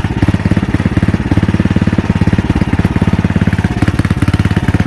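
Riding lawn mower engine running steadily at an even speed, with a regular firing beat.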